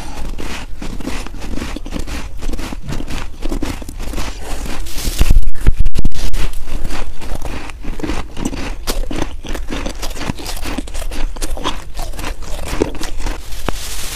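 Close-miked crunching and chewing of a mouthful of fresh snow, many crisp crunches in quick succession. About five seconds in, a loud low rumble hits the microphone for about a second.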